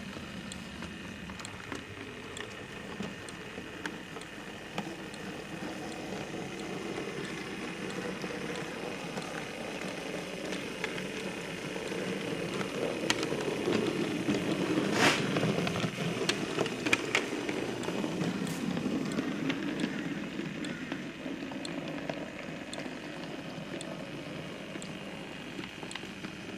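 Bachmann 4F model locomotive running through the sidings of a model railway layout: a steady rumble of its motor and wheels on the track, with scattered clicks. It swells louder through the middle, then eases off.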